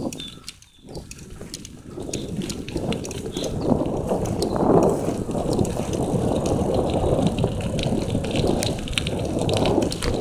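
Bicycle riding along a dirt forest trail: tyres rolling over the bumpy ground with the bike rattling and clicking. The noise briefly drops under a second in, then builds up louder from about two seconds in as the ride picks up.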